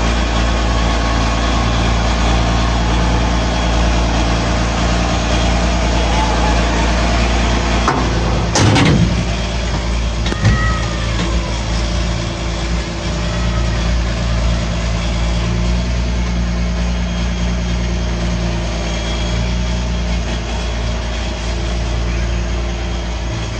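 An old straight truck's carbureted gasoline engine runs steadily, heard from inside the cab as the truck is driven slowly. A single clunk comes about a third of the way in.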